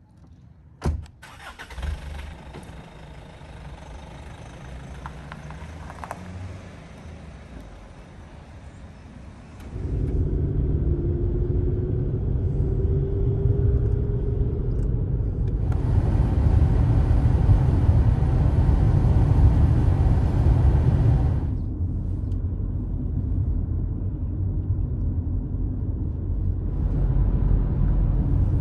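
A car door shuts about a second in. Then a Hyundai Santa Fe SUV drives along a road: a steady low engine and road rumble heard from inside the cabin, which gets much louder from about ten seconds in, with a short rising engine tone soon after as it gathers speed.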